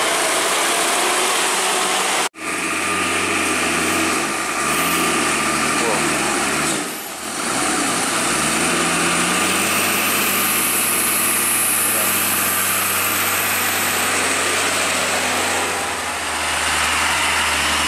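Diesel engines of loaded cargo trucks running at low speed as they crawl past over a rough road. The sound breaks off abruptly about two seconds in and dips again around seven seconds, where clips are cut together.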